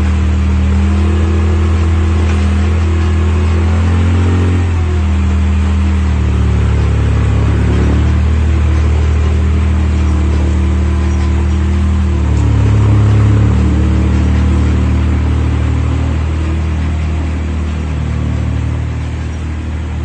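Komatsu WA30-2 backhoe loader's diesel engine running steadily, its speed shifting a few times: dropping about a quarter of the way in and briefly rising past the middle.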